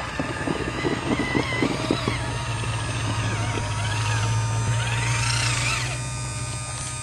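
Scorpion RC rock crawler running over rock: a steady low hum with the whine of its onboard hydraulic steering pump. It grows a little louder in the middle and eases off near the end.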